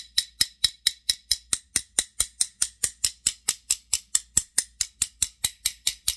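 Small hammer tapping rapidly and evenly on the steel body of old vise grips (locking pliers), about four to five light metallic taps a second, each with a short ring, to knock packed debris loose from inside. The tapping stops just before the end.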